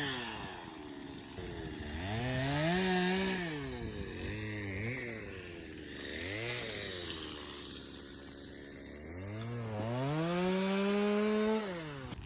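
Chainsaw revving up and down several times while cutting dead trees for firewood, with its longest, highest rev near the end.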